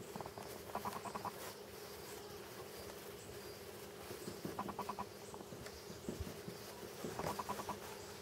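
Faint ambience: a short, rapid trill from an animal call repeats about every three seconds over a steady low hum.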